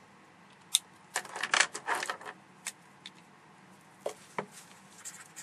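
Desk handling noises as a pen is picked up over paper: one sharp click, then a flurry of small clicks and rattles lasting about a second, and a few fainter clicks after.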